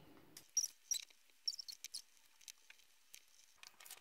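Graphite pencil on paper: a run of short, light scratching strokes, heard as quick irregular ticks, with a brief rustle of a paper sheet being handled near the end.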